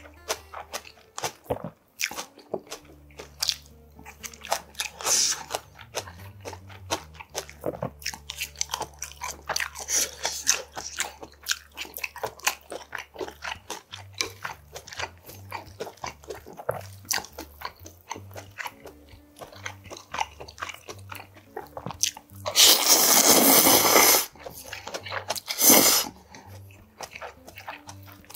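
Close-miked chewing of golbaengi muchim, spicy sea-snail salad with raw vegetables: rapid crunches and wet chewing clicks. About two-thirds through comes a long, loud slurp, and a shorter one follows a couple of seconds later.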